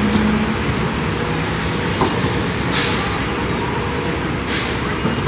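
Steady rumble of vehicle noise with two short hisses a couple of seconds apart, past the middle.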